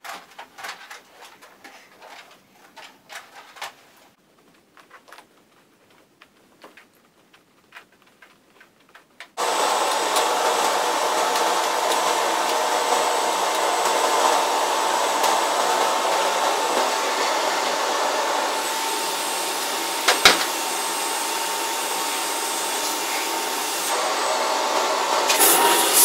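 Canister vacuum cleaner with faint clicks and knocks at first. About nine seconds in the motor comes on abruptly and runs loud and steady with a constant whine, with one sharp click partway through.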